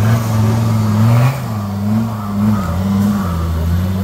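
Engine of a GAZ-69-based off-road trial special revving up and down under load as it churns through deep mud on a slope. The note climbs and is loudest for the first second and a bit, then dips and swells again a few times.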